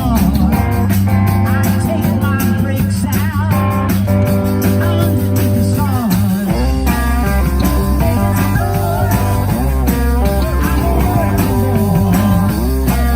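Bluesy rock music played on guitar, with held notes that bend and waver in pitch over a steady bass. A deeper bass comes in about six and a half seconds in.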